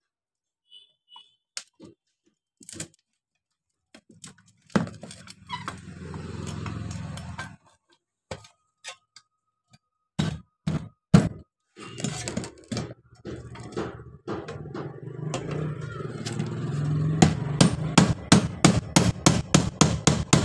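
Hammer taps and knocks on the marble cutter's metal parts as they are driven into place, coming faster, several a second, near the end. Two stretches of steady rough scraping noise run under them.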